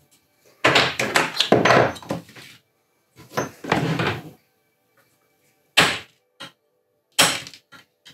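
Screwdriver and hammer knocking the knockouts out of a Bakelite Henley block cover. Two long spells of scraping and rattling plastic come first, then a few sharp knocks in the second half.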